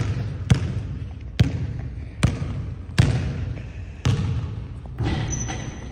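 Basketball bouncing on a hardwood gym floor, about seven sharp bounces at an uneven pace, each echoing in the hall.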